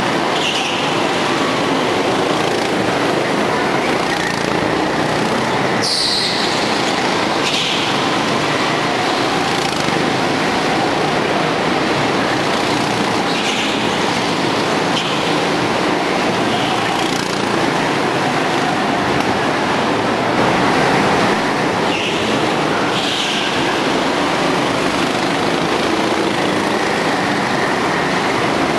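Several go-kart engines running flat out around an indoor track, a continuous drone echoing in the hall, with short high squeals several times.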